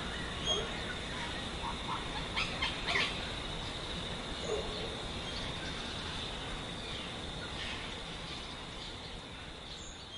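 A few short bird chirps and calls over a steady high whine and background hiss, with a cluster of sharp chirps about two and a half to three seconds in.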